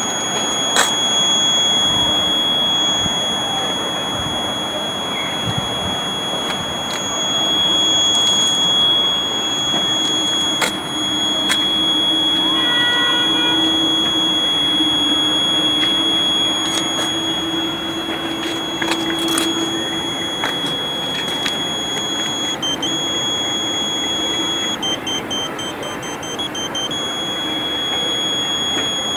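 Steady high-pitched buzzer tone from a Ka-band satellite terminal's pointing buzzer during antenna alignment, over a background hiss. The tone breaks briefly a few times near the end.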